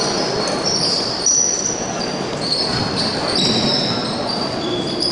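Basketball being dribbled on a hardwood court in a large gym, with short high-pitched sneaker squeaks coming and going and a steady crowd murmur echoing in the hall.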